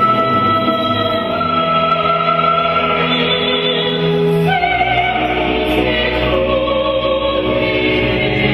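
Choir singing slow, held notes. A low sustained drone enters about halfway through.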